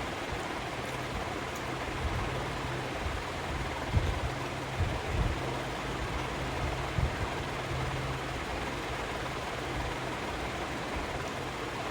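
Steady hiss with a faint low hum underneath, broken by a few soft low thumps.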